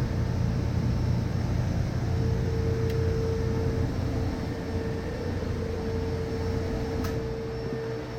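Steady machine hum with a constant mid-pitched tone over a low rumble, and a faint click about 7 seconds in.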